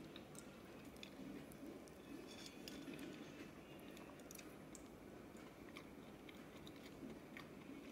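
Near silence with faint, scattered crackles and clicks as the crumbly shortbread pastry of a pineapple cake is pulled apart by hand.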